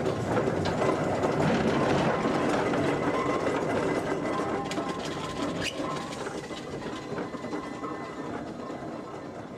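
A steam road engine driving slowly past, its iron wheels and motion clattering with a rhythmic, train-like chuff. It is loudest about two seconds in, then fades steadily as it moves away.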